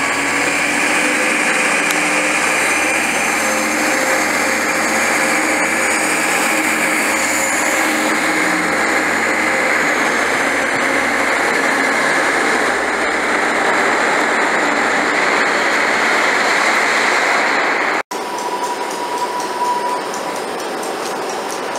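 TransPennine Express Class 185 diesel multiple unit running past at close range, its underfloor Cummins diesel engines droning steadily with a faint high whine. After a sudden cut near the end, quieter rail noise follows from an InterCity 225 train standing at the platform with its driving van trailer leading.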